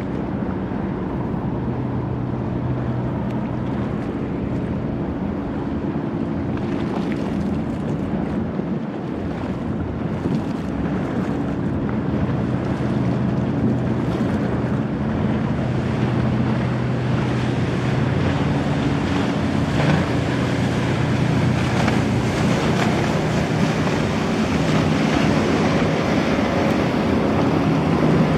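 Boeing 929 Jetfoil hydrofoil under way: the steady hum of its gas-turbine waterjet propulsion under rushing water and wind on the microphone. It grows gradually louder and hissier through the second half.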